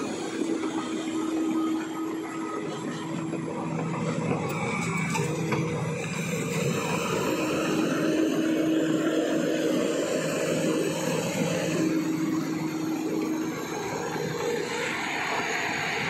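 Bulldozer's diesel engine running as it works, a steady drone whose pitch shifts a little now and then.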